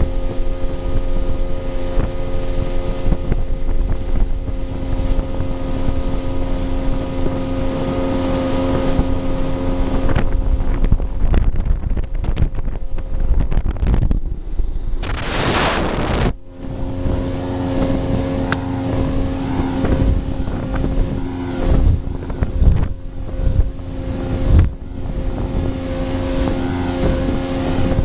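Motorboat engine running at a steady pitch, with wind buffeting the microphone. About fifteen seconds in, a loud rush of noise briefly covers the engine, and irregular low thumps follow in the second half.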